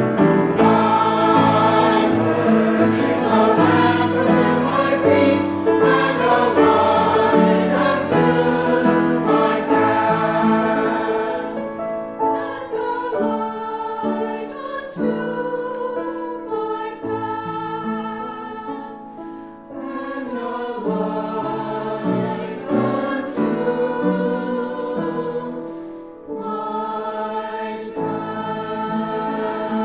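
A choir singing a hymn, softer from about twelve seconds in.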